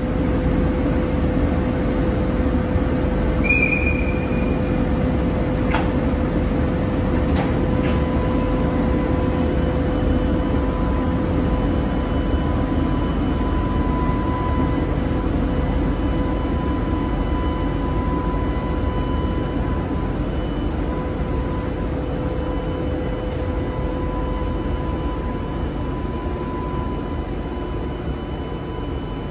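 JR Freight EH500 twin-unit electric locomotive hauling a container freight train slowly past: a steady rumble of wheels and running gear with a steady whine over it. A short squeal comes about three and a half seconds in, and a couple of clanks follow a few seconds later.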